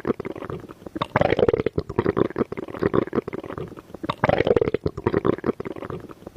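Bowel sounds heard on abdominal auscultation: a dense run of irregular gurgles and clicks, swelling louder twice, about a second in and again about four seconds in.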